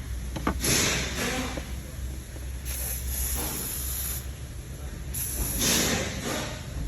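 Aerosol cleaner sprayed in three short hissing bursts, with a steady low hum underneath.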